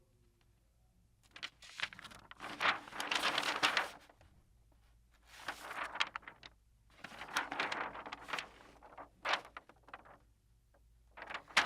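Sheets of paper being turned and rustled: three rustling bursts of one to three seconds each, with short pauses between, and a brief flick near the end.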